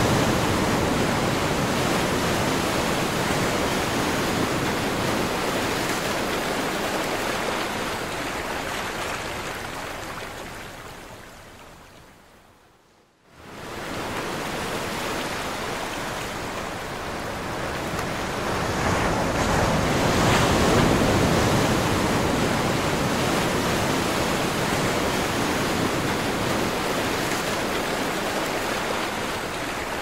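Ocean waves breaking and washing ashore, a steady rush of surf that swells and ebbs. About ten seconds in it fades almost to silence, then cuts back in suddenly a moment later.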